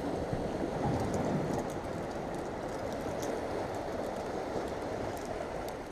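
Steady wash of sea surf against a rocky shore, with a few faint clicks.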